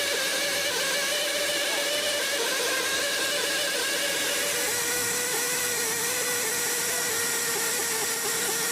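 A small high-speed electric motor running steadily with a high whine, its pitch dropping slightly about halfway through.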